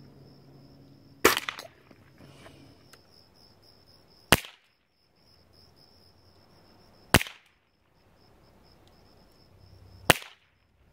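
Four sharp cracks from a Gamo Silent Cat .177 break-barrel air rifle being fired, about three seconds apart.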